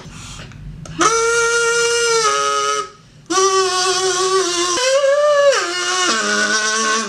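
Plastic kazoo hummed into, playing long buzzing notes. One note is held from about a second in and steps down before a short break; then a run of notes rises and falls in steps, ending on a low note.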